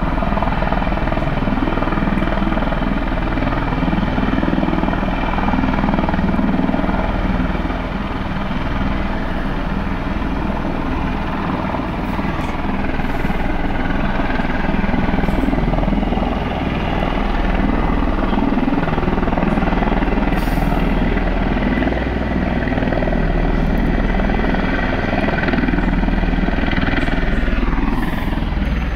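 Bell Boeing V-22 Osprey tiltrotor running on the ground: a steady heavy rotor throb with a turbine whine over it, the whine sliding down in pitch near the end.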